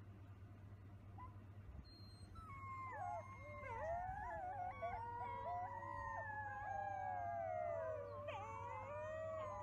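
Wolf pups howling together, many high, wavering voices overlapping in a chorus that builds up about two and a half seconds in.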